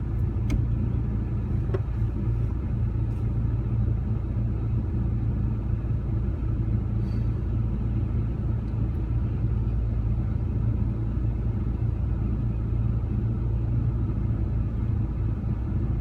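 Rover 45's engine running steadily at low revs, heard from inside the cabin as a low, even rumble, with a couple of faint clicks near the start.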